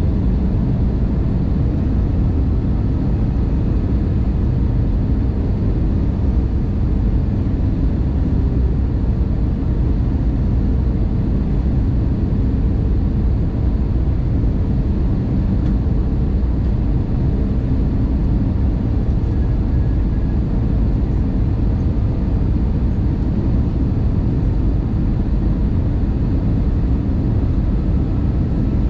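Steady cabin drone of an Airbus A220 in flight: the low, even rush of its Pratt & Whitney PW1500G turbofans and the airflow past the fuselage, with a faint steady hum on top.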